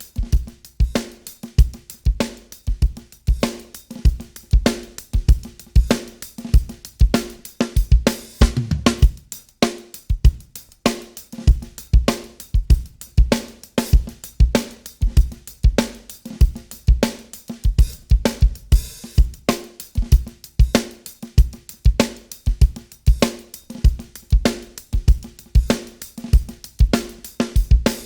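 Recorded drum kit (kick, snare, hi-hat and cymbals) playing a steady groove through a TK Audio Transformer saturation unit, driven with its germanium-transformer stage so the low end sounds crunchy.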